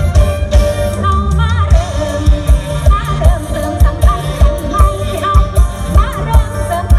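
Live luk thung mor lam band music over a loud PA: a woman sings a wavering melody over a steady, heavy drum beat.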